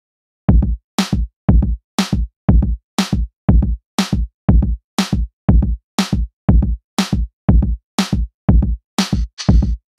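Background electronic music with a steady drum-machine beat, about two beats a second. It starts about half a second in.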